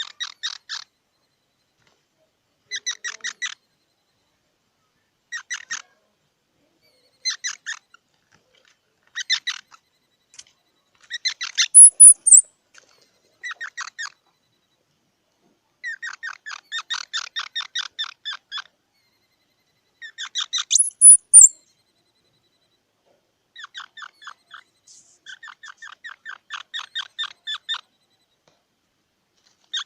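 Squirrel calling in repeated bouts of rapid chattering clicks, roughly ten a second, each bout lasting a second or two with short pauses between. Twice a bout ends in a sharp, high squeal, the loudest sound here.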